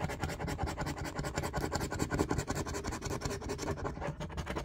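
A coin scratching the coating off a scratch-off lottery ticket in rapid, steady back-and-forth strokes, about ten a second.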